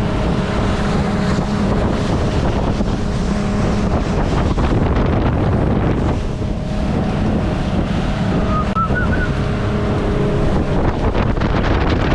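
Motorboat engine running steadily under way, with heavy wind buffeting the microphone and water rushing against the hull.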